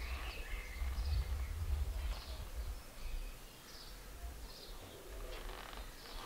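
Outdoor background sound: a low, uneven rumble with faint, short bird chirps now and then.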